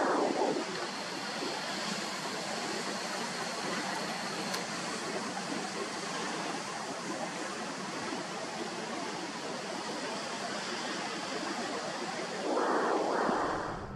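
Steady rush of sea waves washing near the shore, with a louder wave about a second long at the start and another near the end.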